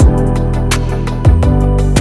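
Background music: a beat with a deep kick drum, sustained bass and chords, and crisp cymbal ticks.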